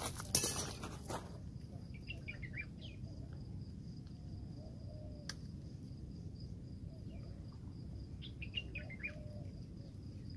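Birds chirping in two short runs, about three seconds in and again near the end, over a steady low rumble and a steady high thin tone. The first second holds a burst of rustling noise, and there is a single sharp click about five seconds in.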